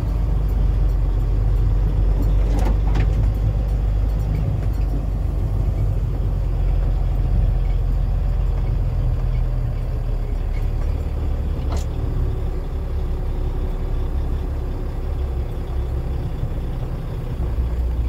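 Truck engine running steadily, heard from inside the cab while the truck drives slowly over corn stubble: a continuous low rumble.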